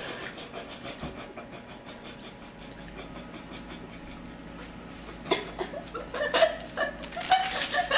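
Soft rapid scraping or rubbing. From about five seconds in, voices break into giggling.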